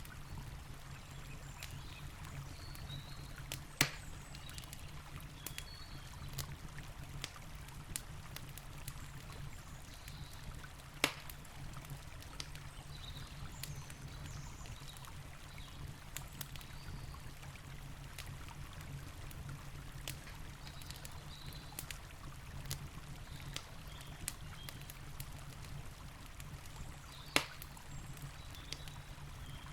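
Campfire crackling, with many small ticks and three louder sharp pops, over the steady rush of a flowing river.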